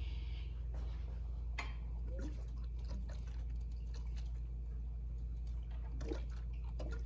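Faint liquid gurgles and soft squishy clicks from a diesel pickup's cooling system as its lower coolant hose is squeezed to burp trapped air out through the open coolant reservoir, over a steady low hum. A short hiss at the very start, then a few scattered small clicks and squelches.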